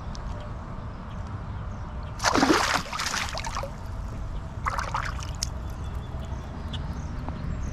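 Water splashing beside a kayak: one loud splash about two seconds in, lasting a second or so, then a shorter, weaker splash about two seconds later.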